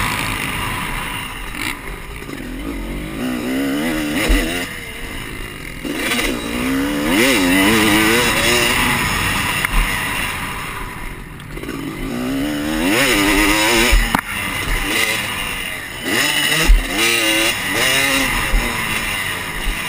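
Dirt bike engine revving up and down again and again as the bike is ridden round a motocross track, heard onboard with wind rush over the microphone. A few sharp knocks stand out, the loudest a little before the end.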